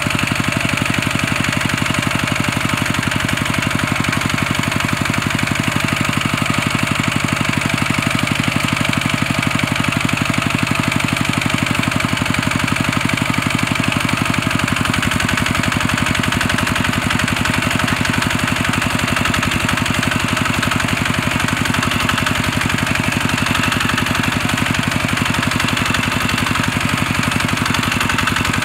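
Kubota two-wheel walking tractor's single-cylinder diesel engine running steadily with an even, rapid beat, under load as the stuck tractor's drive wheels spin in dry soil.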